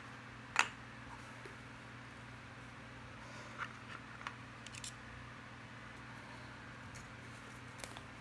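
A steel digital caliper being lifted out of its moulded plastic case: a sharp plastic click about half a second in, then several lighter taps and clicks. A steady low hum runs underneath.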